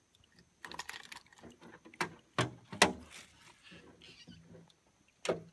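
A piranha thrashing and splashing at the water's surface beside a small boat as it is held in a fish grip, with several sharp splashes, three close together about two seconds in.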